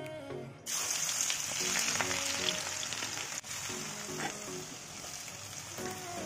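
Chopped ginger, garlic and green chilli dropped into hot oil in a wok, sizzling loudly from about a second in, then chopped onion added and the sizzling carrying on. Soft background music plays underneath.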